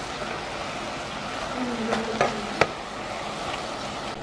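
Wooden spatula stirring chiles and greens in an aluminium pot over a steady sizzle, with three sharp knocks of the spatula against the pot a little after two seconds in.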